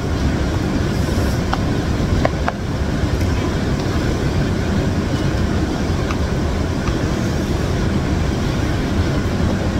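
Heavy rain falling steadily as a dense, even hiss, with a few light clicks of a wooden spoon and fork stirring instant noodles in a bowl.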